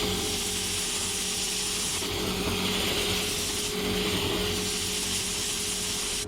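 Compressed-air paint spray gun hissing steadily while spraying a coat of paint, the hiss shifting in strength a couple of times, over a steady low hum.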